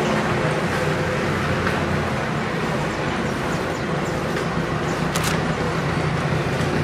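Steady drone of sugar-mill machinery and yard engines running, a low hum under a constant noisy wash, with a few faint clicks and one sharp knock about five seconds in.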